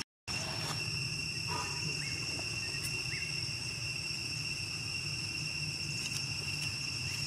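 Insects in vegetation trilling in a steady, high, unbroken drone. The sound cuts out for a moment at the very start, and a couple of short faint chirps come about two and three seconds in.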